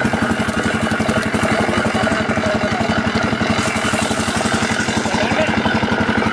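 Belt-driven sugarcane crusher running with stalks being fed through its rollers, its driving engine chugging at a fast, even beat.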